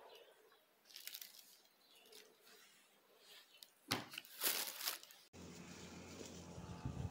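Handling noise as a mango is moved around over a table of groceries: faint rustles, then a loud burst of rustling and knocks about four seconds in. After an abrupt cut about five seconds in, a steady low hum with a few level tones takes over.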